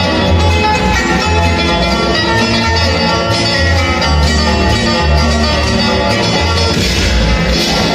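Country-style western music with plucked strings over a steady, repeating bass line.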